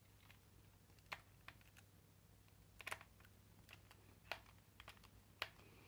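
A handful of faint, scattered clicks and ticks from a screwdriver turning in the screws of a Parkside X20V battery pack's plastic housing, with the pack being handled.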